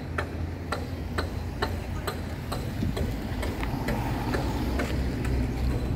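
Footsteps on pavement, evenly paced at about two steps a second, over a low steady rumble.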